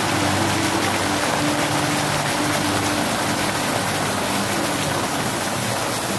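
Fountain jets spraying up and splashing down into a pond, a steady rushing splash of falling water.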